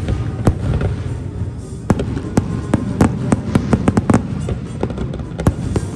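Fireworks going off in quick succession: sharp bangs, coming about three or four a second from about two seconds in, over a low rumble and background music.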